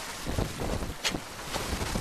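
Wind buffeting the microphone over the rush of choppy lake water along a sailboat under way, with a brief sharper burst of hiss about a second in.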